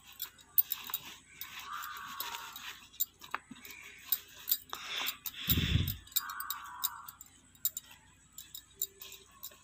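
Small wet clicks and taps of fingers rubbing spice paste into small sea fish on a plastic cutting board, with one low thump about halfway through.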